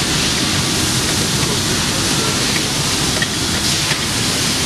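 Steady, loud rushing noise of shop machinery running, with a few faint ticks.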